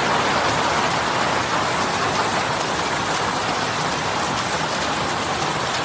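Hail pelting the ground and surrounding surfaces in a heavy hailstorm: a dense, steady hiss of countless small impacts.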